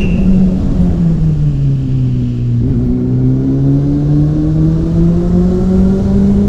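Honda CB400 Super Four's inline-four engine and exhaust under way: the engine note falls for about two seconds as the bike slows, then climbs steadily as it accelerates again.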